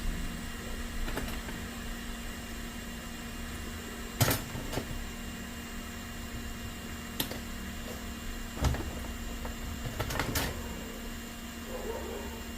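A handful of small, sharp clicks and taps from hand tools working on a phone circuit board, over a steady electrical hum.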